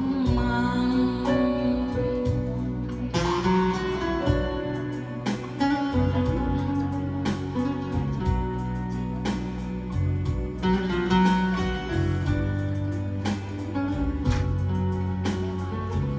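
Instrumental interlude of a ballad's backing music, no singing: a melody over bass and a steady beat.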